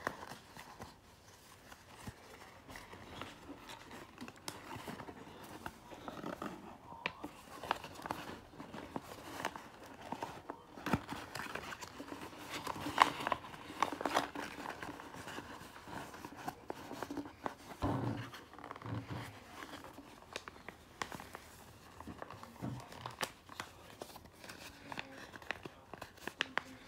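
A sheet of paper being folded and creased by hand close to the microphone: crinkling and rustling with scattered sharp crackles, busiest around the middle.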